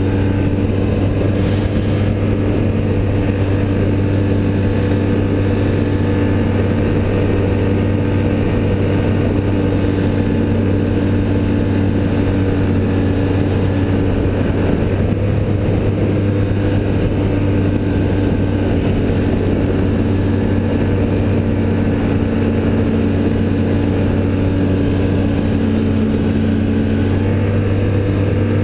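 Snowmobile engine running at a steady cruising speed, heard up close from the machine itself, its pitch holding level with no revving.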